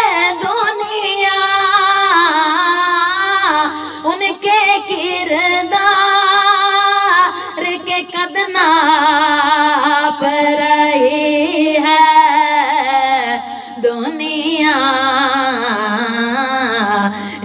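A naat, an Urdu devotional poem praising the Prophet Muhammad, sung by a single voice in long, ornamented melodic lines with bending, held notes.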